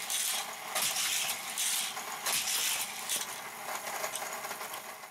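Hot Wheels Retro-Active die-cast car lapping a plastic track loop driven by a battery-powered Hot Wheels booster. The booster's spinning wheels whir steadily, with a rattling burst about every 0.8 seconds as the car is shot through them on each lap.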